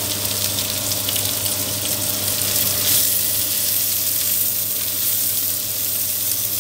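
Pork and vegetables sizzling in a hot wok, a steady watery hiss as they are stirred with a spatula, with a few light scrapes and a swell about three seconds in. A low steady hum runs underneath.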